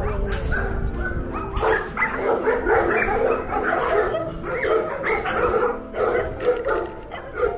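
Several dogs barking and yipping over one another, the barks coming thick and fast from about a second and a half in.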